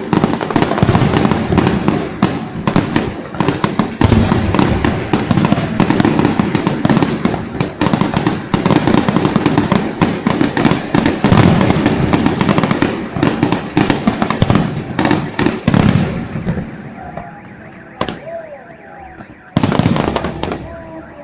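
Fireworks salute: a dense barrage of rapid bangs and crackling that dies down about sixteen seconds in, leaving a few scattered cracks and one more short burst near the end.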